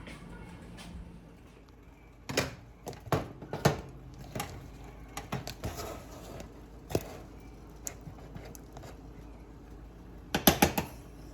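Cookware and kitchen utensils clinking and knocking: a scattered series of sharp knocks through the middle, and a quick cluster of four near the end.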